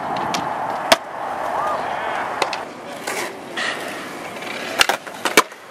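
Skateboard wheels rolling on concrete, with sharp clacks of the board against the ground as tricks are popped and landed: one about a second in and a quick cluster near the end.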